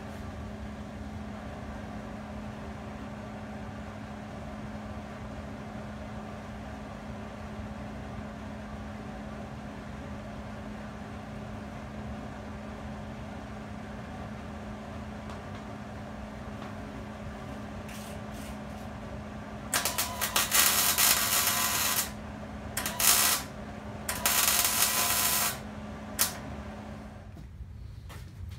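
Arc welder tack-welding a bent steel tube roll-cage bar onto a go-kart frame: three bursts of crackling arc, the first about two seconds long, then a short one, then one of about a second and a half. A steady hum runs underneath and stops near the end.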